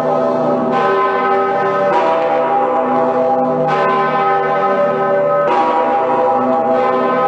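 Two large swinging church bells, Cologne Cathedral's St. Peter's Bell and the Pretiosa, ringing on together. A fresh stroke comes roughly every one and a half to two seconds, over a dense, lasting hum of overlapping bell tones.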